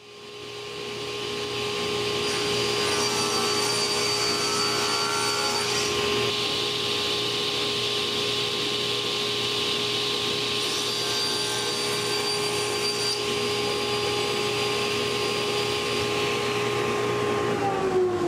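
Sliding panel table saw running with a steady whine while cutting an oak panel. Its sound thickens twice for a few seconds as the blade is in the wood. Near the end the whine falls in pitch as the blade spins down.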